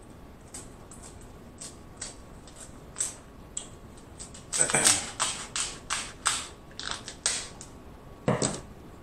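King crab leg shell being snipped with kitchen shears and cracked by hand. It makes a run of sharp clicks and cracks, thickest a little past halfway, with one heavier crack near the end.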